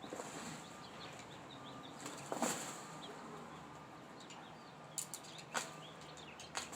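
Scattered rustles and short knocks from a mattress being pulled apart down to its steel springs. The loudest comes a couple of seconds in, and a few more cluster near the end.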